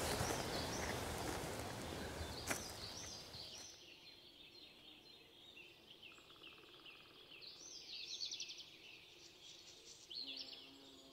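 Footsteps rustling through leaf litter, with a sharp click about two and a half seconds in, fading out after three or four seconds. Then small woodland songbirds keep chirping, with a quick trill about eight seconds in. A low held tone comes in near the end.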